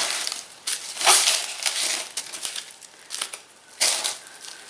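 Crinkling and rustling of crinkled silver wrapping as a wrapped package is handled and lifted out of a cardboard box, in a run of irregular bursts.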